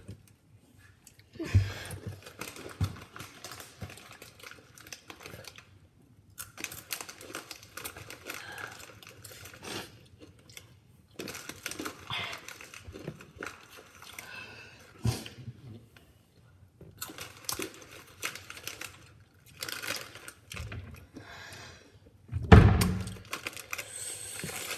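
Snack bag crinkling and rustling in irregular bursts, with small clicks and knocks of handling, and one louder thump about 22 seconds in.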